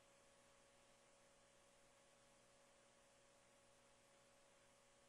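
Near silence: only a faint steady hiss with a low hum.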